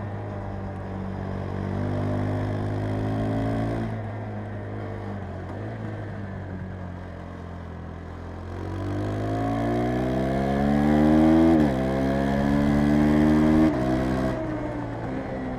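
KTM 390 Adventure's single-cylinder engine under way: easing off for the first few seconds and then running low and steady. About halfway through it accelerates hard with a rising pitch, drops suddenly at an upshift, climbs again, and drops once more at a second shift near the end before falling away.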